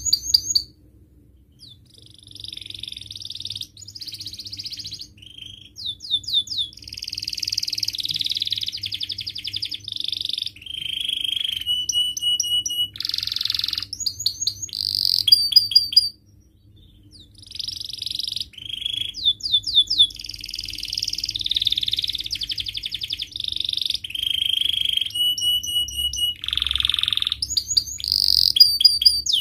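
Domestic canary singing a long, varied song of fast trills, rapid repeated chirps and whistled notes, breaking off briefly about a second in and again around the middle.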